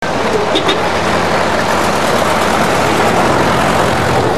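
Motor vehicle engine running, under a steady rushing noise.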